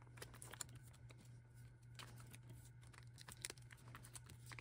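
Faint crinkling and light ticks of plastic photocard sleeves and binder pocket pages as cards are slid into the pockets, over a steady low hum.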